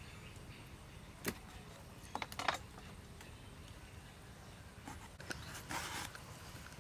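Food preparation by hand: a few sharp knocks of a kitchen knife on a wooden chopping block while slicing beef, then short scraping strokes of a vegetable peeler stripping the skin off an eggplant near the end.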